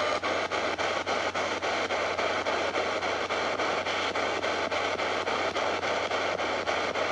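SBox spirit box radio sweeping through the band: a steady rush of radio static chopped by a click about five times a second as it jumps from station to station.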